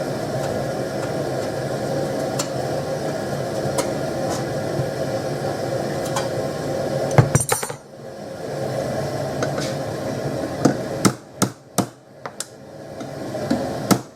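Steady roar of a gas forge burner. Halfway through there is a loud metallic clank and the roar drops away. From about eleven seconds in, a run of sharp hammer blows on steel strip comes two to three a second, as the strip is worked while hot.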